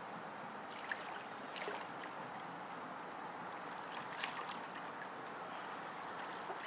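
Swimmer doing breaststroke: water sloshing and light splashing from the strokes, with a few sharper splashes, over a steady hiss.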